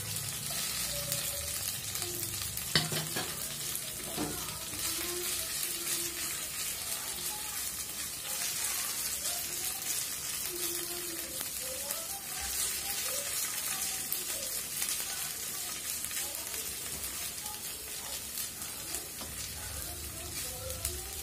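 Chopped red onions sizzling in hot oil with fried ginger-garlic paste in a frying pan, stirred with a wooden spatula. A single sharp tap sounds about three seconds in.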